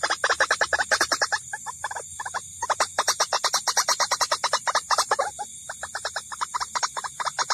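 White-breasted waterhen (ruak-ruak) calls played as a lure recording: a fast, even run of harsh notes, about eight a second, broken by short pauses about a second and a half in and again past five seconds.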